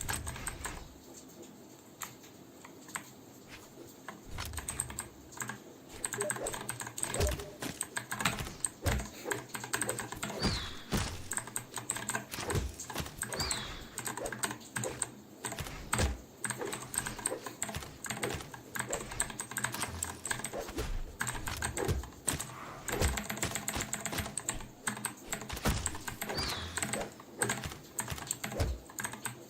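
Typing on a Vortexseries VX8 mechanical keyboard with stock blue clicky switches, a click on each keystroke. The keystrokes are sparse at first and become fast and continuous about four seconds in.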